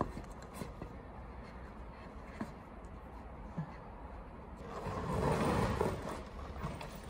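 Handling noise from a nylon camera backpack as a strap is fed through it to hold a tripod: a few small clicks and taps, then a louder rustle and shuffle about five seconds in as the bag is lifted and moved.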